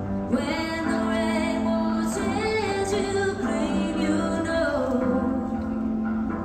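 Show music: a woman singing long held notes over a steady low instrumental accompaniment.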